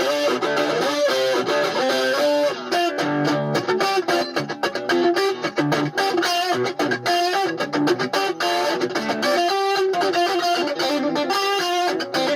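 Background music: electric guitar with a steady rhythm.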